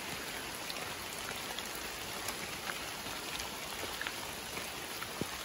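Steady rain falling, a continuous hiss with many scattered sharper ticks of individual drops striking.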